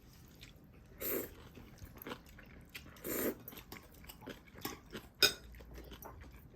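Close-up eating sounds of ramen and kimchi: chewing and mouth noises, with two short louder bursts about one and three seconds in and a sharp click a little after five seconds.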